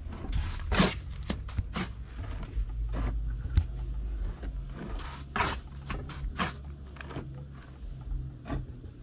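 Irregular scrapes and knocks of concrete-block work, tools and blocks on mortar, with a few longer scrapes about half a second in and around five and a half seconds. A low steady hum runs underneath.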